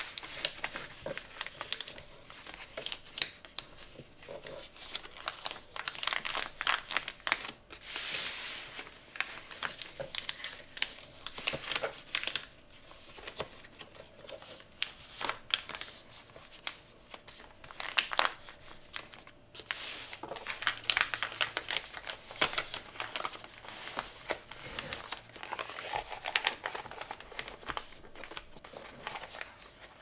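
Kraft paper crinkling and rustling in irregular bursts as it is folded, creased and pressed flat by hand.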